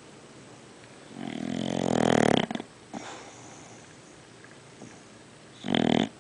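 English bulldog snoring: a long snore about a second in that grows louder, then a shorter one near the end.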